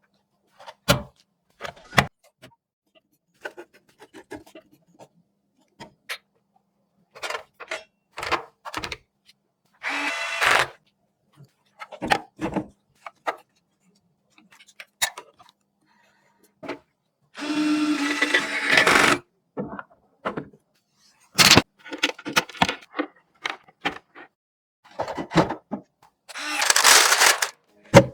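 Computer parts being handled and fitted together: scattered sharp clicks and knocks, with three stretches of a small motor running for about a second each, the longest around the middle.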